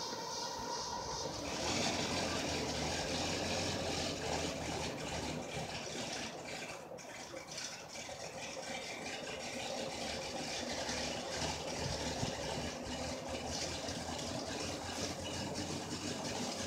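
Locomotive running at rest, a steady hiss over a low hum that swells about two seconds in.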